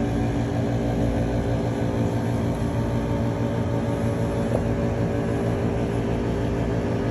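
Window-type air conditioner running with a steady hum.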